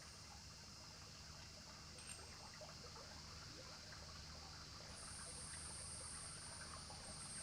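Near silence: a faint steady hiss with a few soft ticks, and a thin high steady tone that comes in about five seconds in.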